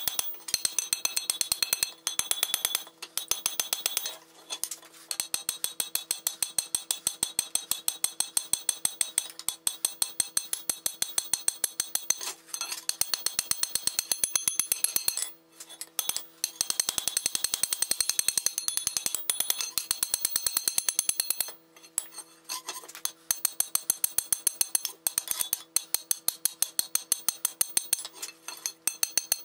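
Blacksmith's hand hammer striking a red-hot flat iron bar on an anvil, about three blows a second with a bright metallic ring, in runs broken by short pauses.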